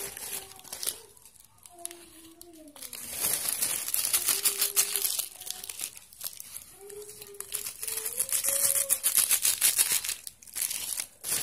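Plastic sachet of fried shallots from an Indomie goreng pack crinkling as it is torn open and shaken out over the noodles, a dense crackle that grows louder about three seconds in.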